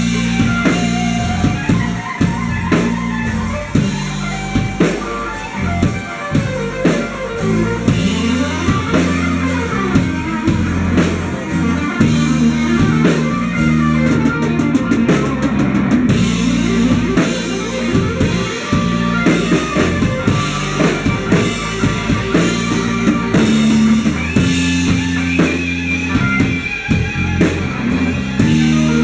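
A live rock band playing: electric guitars, bass guitar and drum kit.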